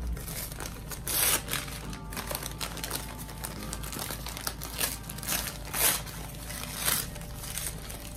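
Packing paper crinkling as hands unwrap it, with sharper crackles about a second in and again around five, six and seven seconds.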